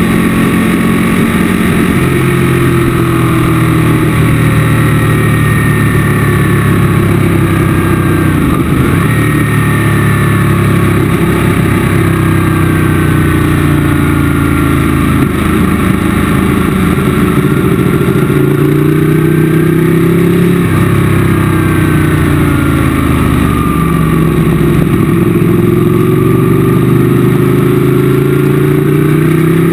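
Motorcycle engine heard from onboard at track speed, its revs rising and falling again and again as the rider accelerates and slows for corners, over a steady rush of wind.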